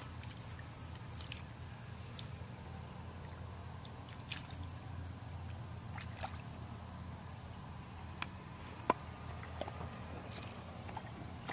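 Bare feet wading through shallow muddy water, sloshing and squelching, with scattered short clicks and splashes, the sharpest about nine seconds in.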